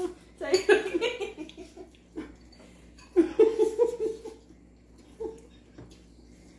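Two bursts of giggling laughter, each a quick run of pulsed 'ha' sounds, the first about half a second in and the second about three seconds in.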